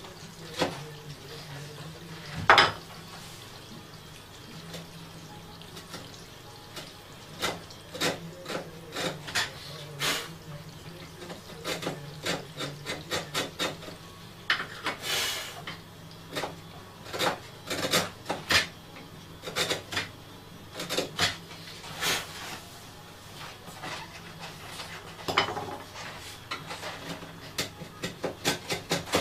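Small hand file worked against the wooden music box in irregular short strokes, sometimes in quick runs of several, with a sharp knock about two and a half seconds in.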